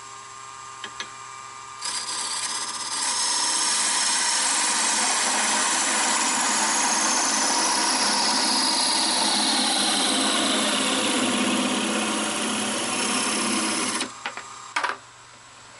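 Wood lathe running, then a narrow parting tool cutting into the spinning wooden workpiece: a steady, loud cutting hiss starts about two seconds in and stops about fourteen seconds in. A faint whistle within it slowly falls in pitch. A few clicks follow the cut.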